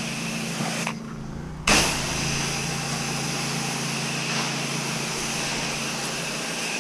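Pressure washer engine running steadily under the hiss of the spray wand. About a second in, the spray stops for under a second while the engine keeps running, then comes back on with a sudden burst.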